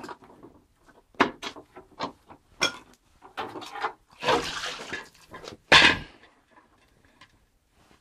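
Steel wheel rims lifted out of an electrolysis rust-removal water bath: light knocks of metal at first, then water pouring and splashing off the rims about halfway through, followed by a loud knock.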